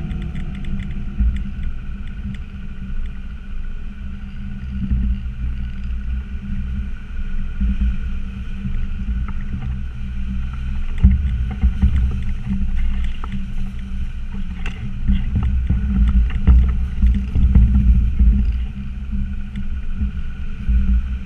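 Land Rover Discovery Td5's five-cylinder turbodiesel engine running steadily as it drives over rough off-road ground, with scattered knocks and rattles from the body and suspension.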